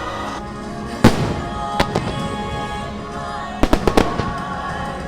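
Fireworks shells bursting over the show's music: a loud bang about a second in, another just before two seconds, and a quick run of several bangs near four seconds.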